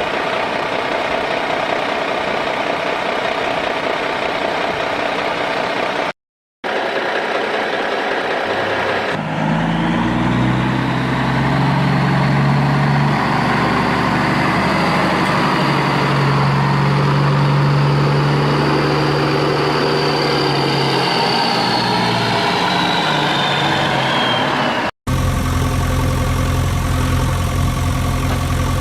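An engine-like motor running steadily, broken twice by abrupt cuts. In the middle part it has a strong low hum, with a high whine that falls away near the end of that part.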